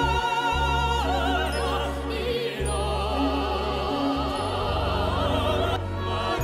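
A young girl's operatic soprano voice holding long notes with a wide vibrato, moving to a new note about a second in and twice more later, over a low instrumental accompaniment.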